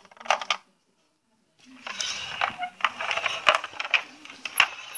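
Plastic toys clattering and knocking together as they are handled in a wooden toy crate. A short rattle comes first, then after a pause a denser run of clicks and clatter lasting about three seconds.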